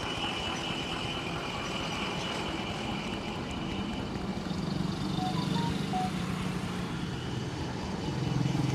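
Steady street traffic noise, with a low engine hum from a passing vehicle coming up in the second half.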